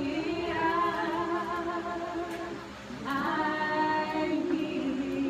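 Voices singing a cappella with long held notes. There is a short break about halfway through, then a new phrase begins.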